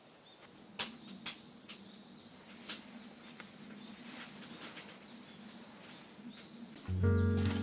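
Wood burning in a wood-fired kiln's firebox: scattered sharp crackles and pops over a faint outdoor hush. About seven seconds in, music starts and is the loudest sound.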